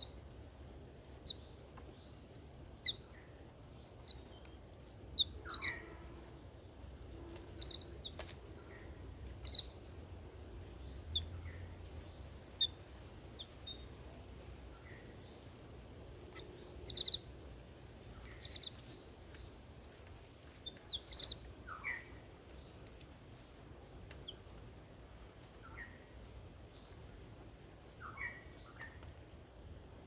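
A steady, high-pitched insect drone with short bird chirps and calls every second or two, a few of them falling in pitch; the calls thin out in the last several seconds.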